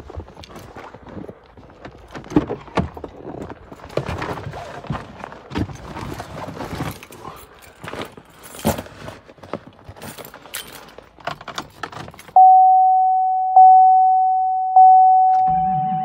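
Keys jangling, knocks and rustling as the driver opens the door of a Chevrolet Silverado HD and climbs into the cab. About twelve seconds in, the truck's chime starts ringing, one steady tone struck about once a second and fading between strikes. Just before the end, a low rumble begins under the chime as the Duramax diesel begins cranking for a cold start at -5 °F.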